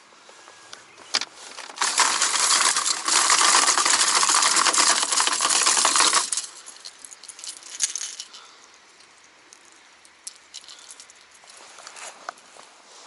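Hard plastic lures clattering and rattling in a plastic tackle box as a hand rummages through it. The clatter is dense for about four seconds, then trails off into a few scattered clicks.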